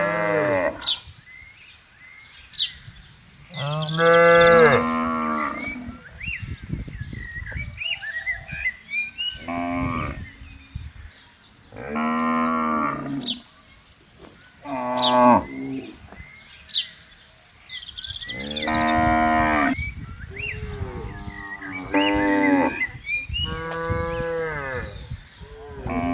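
Cattle mooing over and over: about nine calls, some short and some drawn out, spaced a few seconds apart.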